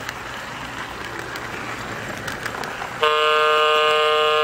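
Model diesel locomotive's built-in sound system sounding its horn: one long, loud, steady multi-tone blast starting about three seconds in, after a stretch of steady running noise.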